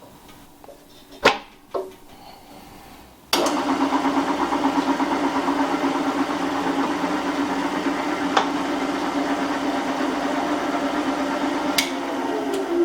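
Two clicks, then the Meddings MF4 drill press's electric motor switches on abruptly about three seconds in and runs with a steady hum.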